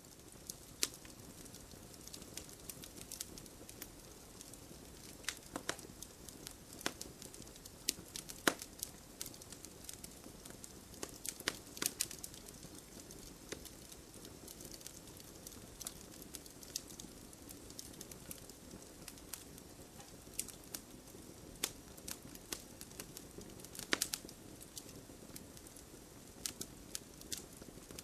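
Wood campfire burning: a soft steady hiss with frequent irregular crackles and pops, and a few louder snaps scattered through.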